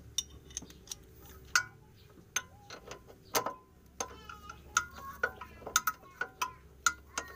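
Socket wrench on a long extension working the nut of a Suzuki APV's front stabilizer link, fitted to cure a light creaking from the front: a series of irregular, sharp metallic clicks and clinks.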